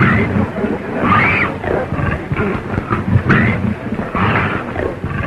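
Wild animal cries on an old film soundtrack: a low roaring rumble under several screeching calls that rise and fall in pitch, a second or so apart.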